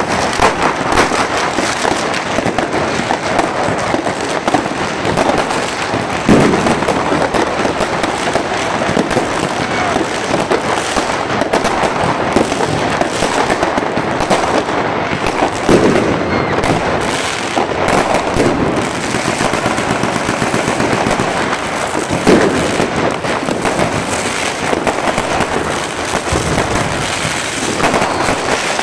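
Many consumer fireworks going off at once: rockets bursting in a dense, unbroken crackle, with a few louder bangs standing out every several seconds.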